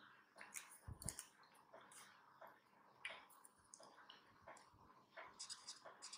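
Near silence with a few faint clicks and taps: felt-tip markers being handled on paper as a red marker is put down and one with a blue cap is picked up.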